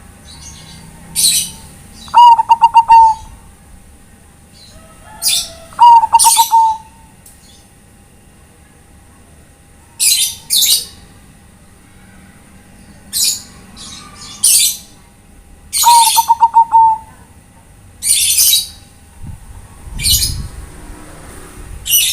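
Zebra dove (perkutut) cooing: three rapid trilled coos, about 2, 6 and 16 seconds in. Short, sharp, high-pitched chirps repeat every second or few between and over them.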